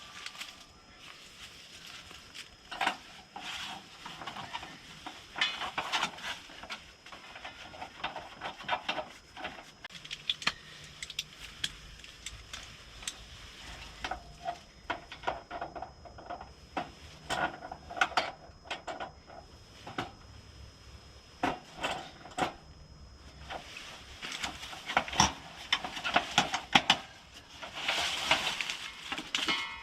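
Irregular clicks, taps and clatter of hands working a gas hose and its metal fittings onto a portable propane heater.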